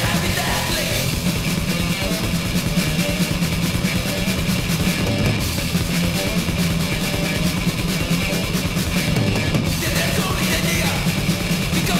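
Death/thrash metal band playing: distorted electric guitars with bass and a fast drum kit, with no vocals prominent in this stretch.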